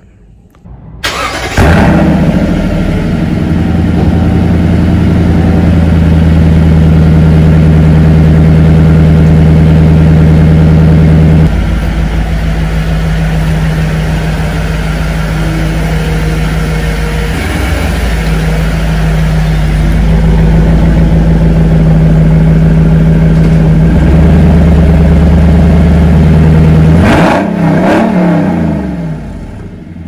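2020 Toyota Sequoia TRD Pro's 5.7-litre V8 starting through an aftermarket Corsa cat-back exhaust, heard at the tailpipe: it catches about a second in and runs at a fast cold-start idle. The idle settles lower about eleven seconds in, and near the end a brief rise and fall in pitch.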